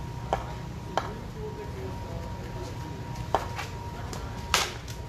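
A few sharp knocks, the loudest and longest about four and a half seconds in: a cricket bat striking the ball, over a steady low rumble and a faint constant tone.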